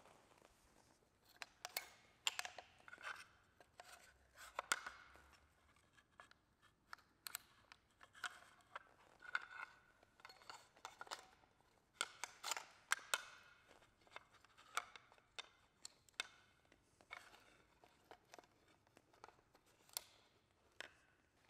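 Irregular clicks, knocks and rustles of plastic kayak rudder pedals being fitted onto a tubular foot brace bar and their elastic return lines hooked on.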